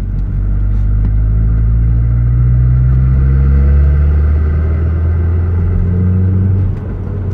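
Audi B5 A4 1.8T turbocharged four-cylinder engine and loud exhaust while driving. The engine pitch climbs slowly for about four seconds, then eases off, with a sudden drop in level near the end.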